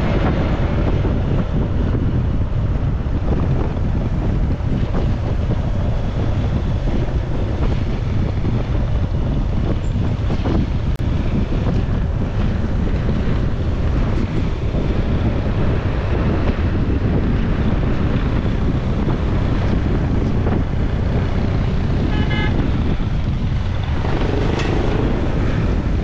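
Steady wind buffeting on the microphone of a camera mounted on a moving dirt bike, with the motorcycle's engine running underneath.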